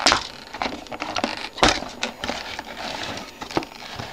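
Hands handling small die-cast model excavator parts and their packaging: a few sharp clicks and knocks, the strongest right at the start and about a second and a half in, with light rustling between.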